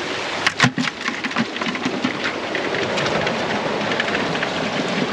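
Sea water washing and splashing over shoreline rocks as a steady rushing hiss, with a few sharp knocks about half a second in.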